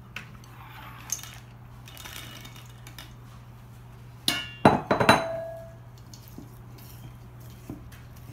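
A ceramic bowl scraped and knocked against a stainless-steel mixing bowl: light scraping, then a quick run of sharp clinks about four to five seconds in, the steel bowl ringing briefly after the last one.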